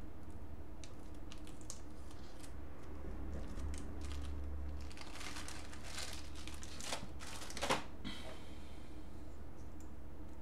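Crinkling and tearing of a surgical scalpel blade's wrapper, with small clicks and scrapes as the blade is changed, over a steady low electrical hum.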